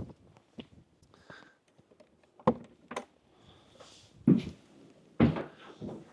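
Scattered knocks and thuds in a small wooden hut, about six of them spread over a few seconds: a wooden door being handled, with someone moving about inside.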